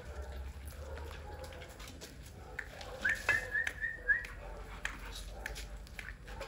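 A short run of high whistled notes, stepping up and down in pitch, about three seconds in and lasting about a second, over scattered faint clicks and knocks.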